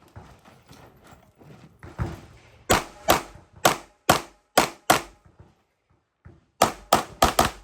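Pistol shots fired rapidly during a USPSA stage, most likely the shooter's Kimber 2K11 2011-pattern pistol: about ten loud shots, mostly in quick pairs, in two strings with a pause of about a second and a half between them. Before the first shots there is low handling and movement noise.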